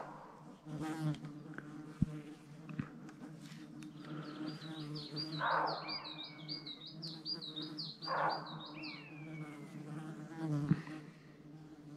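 A flying insect buzzes at a steady pitch throughout. From about four seconds in, a bird sings a rapid string of repeated high notes for some five seconds. Two short hoarse barks of a roe buck come about three seconds apart.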